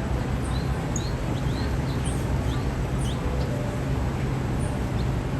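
Tiny yellow songbird giving quick, high chirps, a dozen or so, most of them in the first three and a half seconds, over a steady low rumble.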